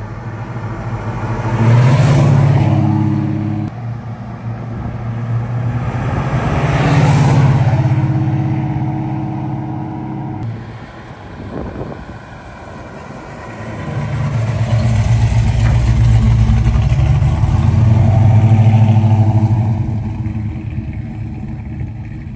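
The 440 V8 of a 1969 Plymouth GTX rumbling as the car drives past on the street. It swells and fades twice, then gives a longer, deeper rumble in the second half.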